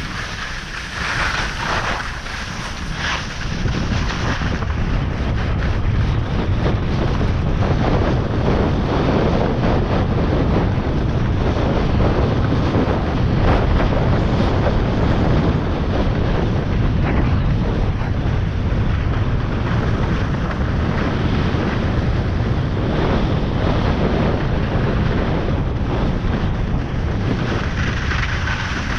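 Wind buffeting the action camera's microphone during a downhill ski run, with skis hissing and scraping over groomed snow. Louder from about four seconds in, then steady.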